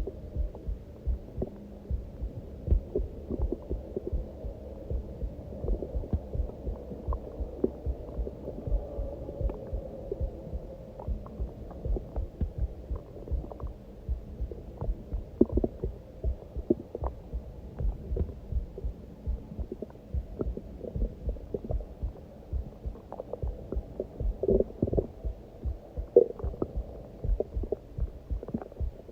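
A person's heartbeat beating steadily, close up. Over it the stomach growls from hunger, with a long drawn-out gurgle about a fifth of the way in and shorter gurgles near the end.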